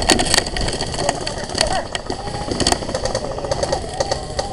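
Airsoft gunfire: a quick run of sharp cracks at the start, then single shots, over handling and wind rumble on a gun-mounted camera. Faint distant voices come through in between.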